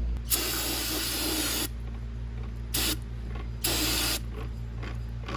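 Aerosol brake cleaner sprayed in bursts into an open rear differential housing, washing the gear oil off the ring gear and carrier. There is a long hiss of about a second and a half, a brief puff, then a shorter hiss.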